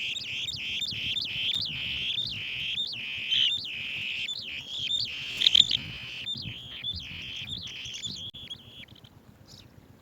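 Swallow-tailed bee-eaters calling: a dense run of high chirps, several a second, that starts abruptly, peaks a little after five seconds and stops about nine seconds in.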